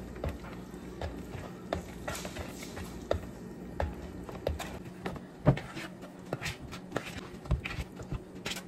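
Spatula stirring thick muffin batter in a mixing bowl, knocking and scraping against the bowl's sides in irregular taps, with one sharper knock about five and a half seconds in.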